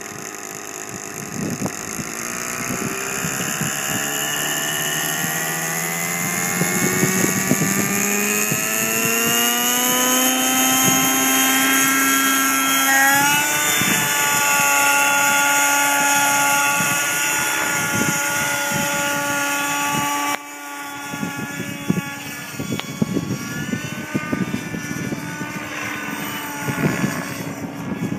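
YS 56 glow engine with a Hatori tuned pipe, on a Synergy N5 radio-controlled helicopter, spooling up: its pitch climbs steadily for the first dozen or so seconds, then holds steady as the helicopter lifts off. In the later part the pitch wavers up and down as the helicopter flies.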